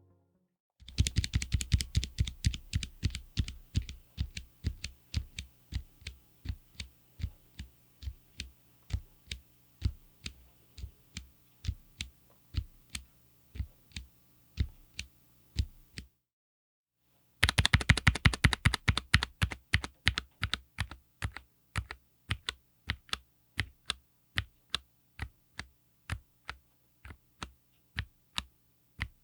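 Kailh Choc V2 Red linear low-profile switches on a Lofree Flow84 mechanical keyboard being pressed: a quick flurry of keystrokes, then steady single presses about two a second. After a short silent break about halfway through, the same pattern repeats.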